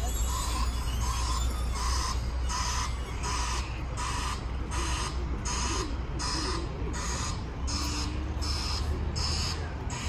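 Compact ride-on street sweeper at work: a low steady engine hum under a regular swishing from its rotating brushes, about two swishes a second.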